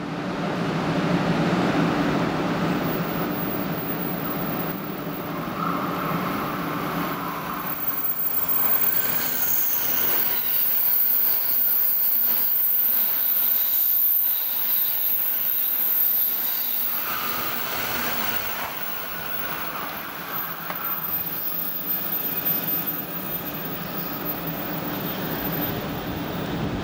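N700 series Shinkansen running through the station at speed. The noise builds to its loudest about halfway through as the train passes, then fades as it pulls away.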